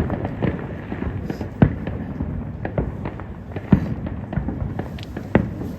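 Aerial fireworks bursting: a continuous rumble of launches and explosions with frequent sharp cracks and deeper booms at irregular intervals.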